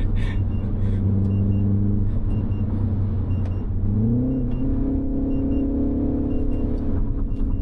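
Mini Cooper S's turbocharged 2.0-litre four-cylinder engine pulling the car along, with the revs rising about four seconds in and then holding steady at the higher pitch. It sounds not especially harsh or rough.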